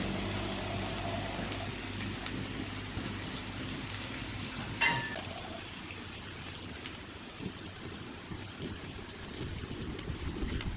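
Tofu frying in hot oil in a pan over a wood fire: a steady sizzle with scattered small pops. A short high chirp about five seconds in.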